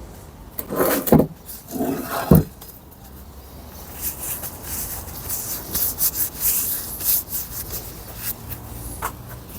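Two heavy knocks, then a run of short, quick scraping strokes: hand work on parts in a workshop.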